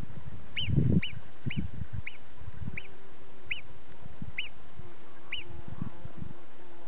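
Alpine marmot alarm call: a series of eight short, sharp whistles, each rising and falling, about one and a half per second, sounded to warn of intruders. Low rumbling thumps are loudest about a second in, and a faint steady low hum comes in about halfway.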